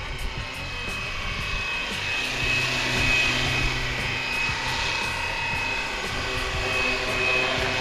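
Flywing BO 105 450-size RC helicopter in flight, its electric motor and rotor making a steady whine that swells and eases slightly.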